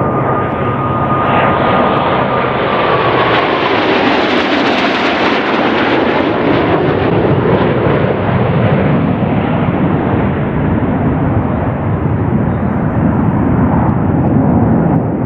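Jet engines of the Blue Angels Diamond, four F/A-18 Hornets, making a low pass. The jet noise builds to its sharpest about five seconds in, with a whine that drops in pitch as they go by, then a heavy rumble that trails away slowly.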